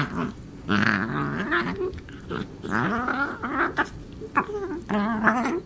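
Wirehaired dachshund making strange, alien-like play noises: a string of wavering, warbling growl-whines, each bending up and down in pitch, with short breaks between them.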